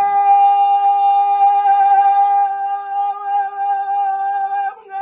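Music: a single long held note that is steady at first and wavers slightly in its second half, with a short break near the end.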